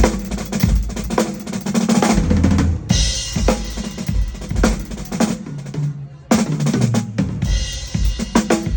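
Drum kit being played for a sound check: bass drum, snare and cymbal strikes in a busy pattern, with a brief break about six seconds in before the playing picks up again.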